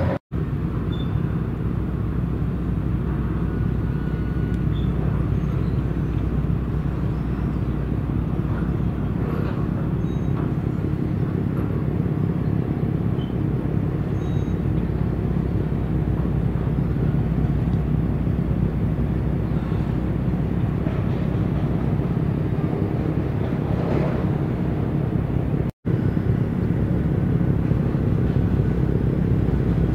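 Steady low outdoor rumble with a hiss above it, cutting out for an instant twice.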